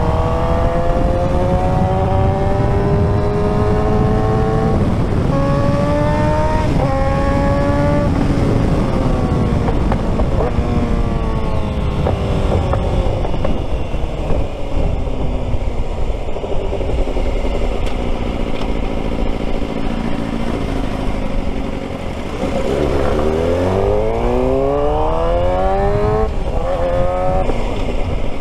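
Suzuki GSX-R600's inline-four engine pulling through the gears: the note climbs and drops back at two quick upshifts in the first few seconds, sinks slowly as the throttle eases for a long stretch, then climbs hard again with two more upshifts near the end. Heavy wind noise on the microphone runs underneath.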